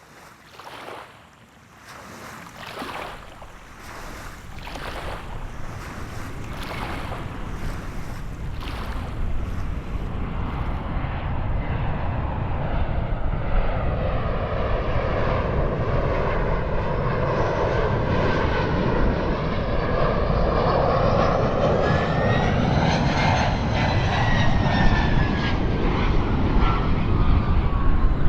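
Jet airliner approaching and growing steadily louder, its engine whine rising in pitch and then falling off over the last few seconds as it passes.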